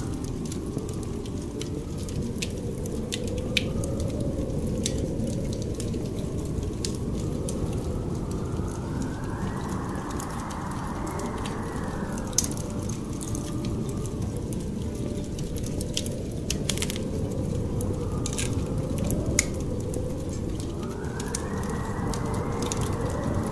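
Added ambience of wind and a crackling fireplace: a steady low rush of wind that twice swells into a higher gust, about ten seconds in and near the end, over scattered pops and crackles of burning wood.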